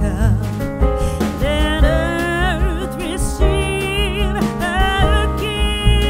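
A Christmas song: a singer's voice wavering in vibrato over instrumental backing with a strong bass.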